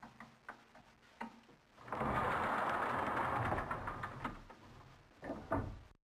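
A few light clicks and knocks, then a metal rolling shutter rattling as it is pushed up for about two and a half seconds, and a couple more knocks near the end.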